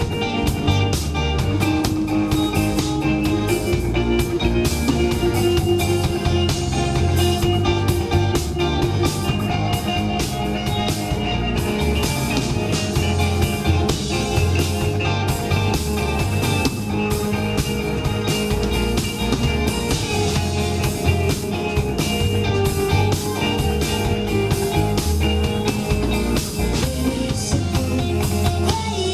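Live rock band playing: electric guitars, bass guitar and drum kit driving a steady beat.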